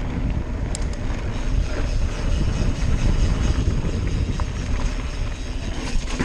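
Mountain bike rolling fast down a dirt and gravel track: a steady low rumble of tyres and wind on the microphone, with a few sharp clicks and rattles from the bike.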